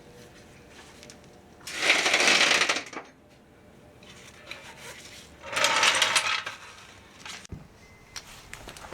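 Two bursts of rapid mechanical rattling, each about a second long and about four seconds apart, from a wrench spinning a wheel's lug nuts during a tyre change.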